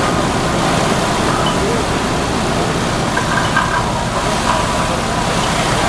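Fire apparatus running steadily at the fire scene: a loud, even mechanical rush with a low rumble underneath. Faint voices come through about halfway in.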